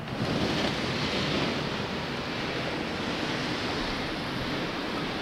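Hull of a small rowing boat scraping and sliding over beach sand as it is dragged toward the water, a steady gritty hiss that starts suddenly and runs on without a break.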